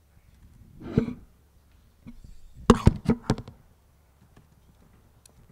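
A thump about a second in, then a quick run of five or six sharp knocks and clicks about a second later, picked up close to the lectern microphone.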